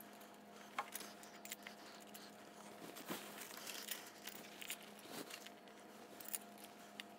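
Faint light clicks and handling noises as the thumb screws of a cam bearing installer tool are fitted by hand into the engine case, over a faint steady hum.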